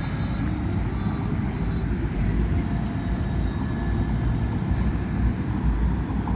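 A steady low rumble that runs without a break.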